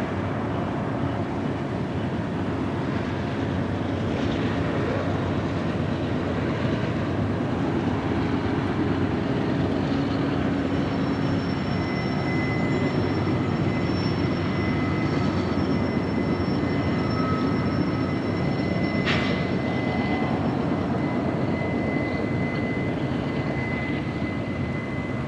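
Union Pacific freight train's diesel locomotives running with a steady drone and rumble as the train rolls past. A thin, steady high squeal joins about halfway through.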